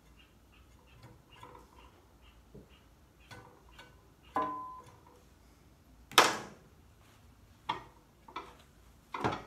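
Workbench handling noises: a metal clink that rings briefly about four seconds in, a sharp knock (the loudest) about two seconds later, and a few lighter knocks near the end, over a faint quick ticking in the first seconds.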